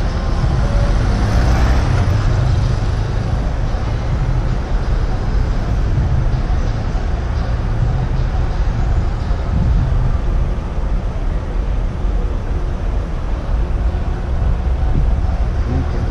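Wind rumbling on a moving action camera's microphone, with road and traffic noise; a car passes about one to two seconds in.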